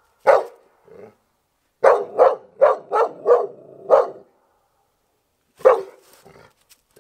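Dog barking: a single bark at the start, a quick run of about six barks around the middle, and one more bark near the end.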